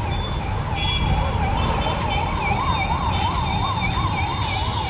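An electronic siren sounding a fast warble, rising and falling about three times a second, over the low rumble of vehicle engines and traffic.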